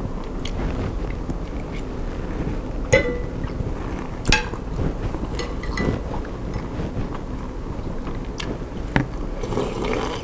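Close-miked chewing of bakso meatballs, with a few sharp clinks of a metal spoon and fork against the bowl, one of them briefly ringing, and a slurp of broth from the spoon near the end.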